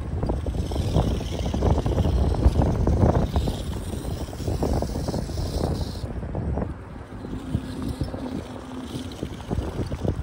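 Wind buffeting the microphone, over the faint high whine of a 1/24-scale RC crawler's motor and gears as it creeps over tree roots. The whine drops out about six seconds in.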